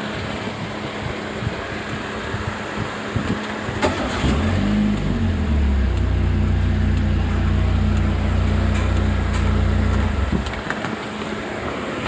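Proton Gen-2's four-cylinder engine started by push button: a click, then the engine catches about four seconds in, flares briefly and settles to a steady idle, then shuts off abruptly near the end.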